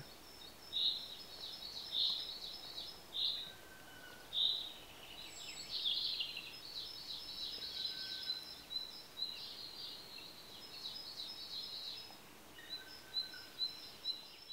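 Birds chirping in short high calls every second or so over a faint steady background hiss, with a run of quick repeated notes near the end.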